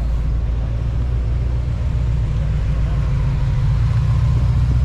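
Car engine running steadily with a deep, even rumble, getting a little louder near the end.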